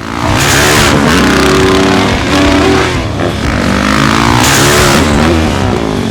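Yamaha YZ450F single-cylinder four-stroke dirt bike being ridden hard, its engine revving up and down repeatedly, with bursts of hiss about half a second and four and a half seconds in.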